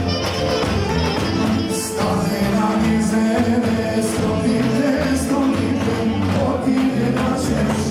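Live Balkan folk band playing oro dance music, a strapped bass drum beaten with a stick, with singing over it.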